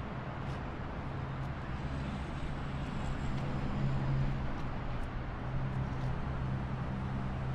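Low steady hum over background outdoor noise, a little louder about four seconds in.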